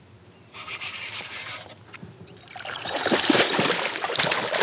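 Hooked bass thrashing and splashing at the water's surface beside a kayak: a run of loud, choppy splashes that builds from about halfway through and is loudest near the end. Before it comes a short scratchy rasp.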